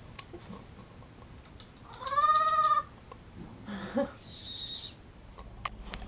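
Infant vervet monkey calling: a short arched call about two seconds in, then a thin, very high squeal about four seconds in, with a few faint clicks between.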